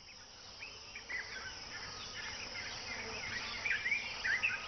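Wetland bird chorus: many short chirps and quick calls over a steady high insect hiss. The calls start about a second in and grow busier.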